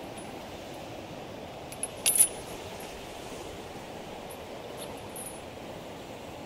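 Steady outdoor rushing noise with a brief sharp metallic clink about two seconds in.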